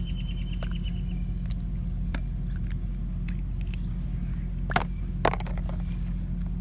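Steady low hum with scattered light clicks of small plastic toy figures and slime packs being handled, two sharper clicks about five seconds in.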